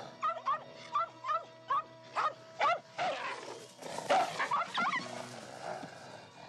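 An animal yelping over background music, in a quick string of short calls that rise in pitch, about eight in the first three seconds. A louder cluster of cries comes about four seconds in, then the calls die away.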